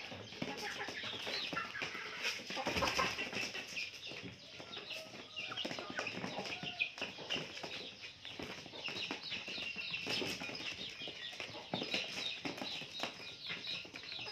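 Young chickens clucking and peeping in short calls, mixed with frequent small clicks.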